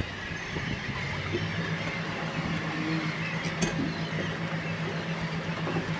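Boat engine running at low speed: a steady low hum that settles in about a second in and holds, over a light wash of wind and water noise.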